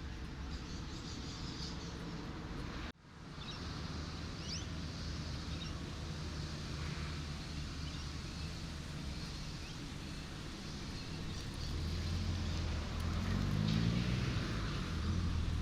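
Road traffic: a vehicle engine hums steadily over a constant wash of noise. The sound cuts out for an instant about three seconds in. Near the end a vehicle engine rises in pitch and grows louder, as if accelerating or approaching.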